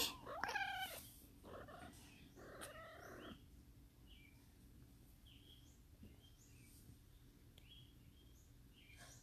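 Cat meowing a few times in the first three seconds, the first call rising and falling, then only faint, short, high chirps.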